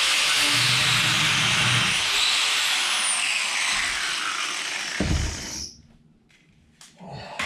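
Handheld power tool cutting or grinding with a steady, loud hiss, then shutting off about five and a half seconds in, just after a low thump. A short clatter follows near the end.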